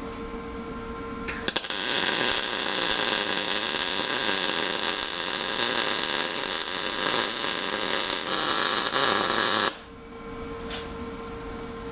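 Lincoln Power MIG 210 MP welder arc crackling steadily for about eight seconds as a bead is run around a plate tacked over a cracked steering bracket. The arc strikes about a second in and cuts off sharply near the end, with a steady hum before and after.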